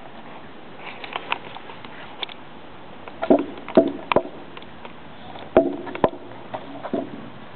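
Staffordshire bull terriers making an irregular run of sharp knocks and short noises. The loudest cluster comes about three to four seconds in, and another follows about a second later.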